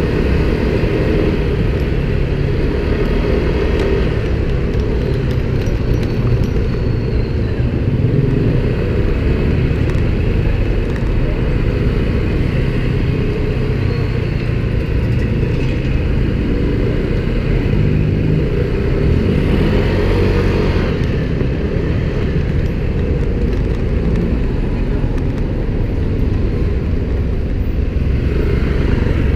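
Busy city street traffic heard from a moving electric scooter: cars and motorcycles running close by, with a steady low rumble throughout.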